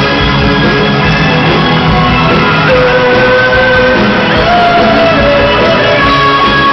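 Live rock band playing loudly, with drums, guitar and long held melodic notes over a steady beat.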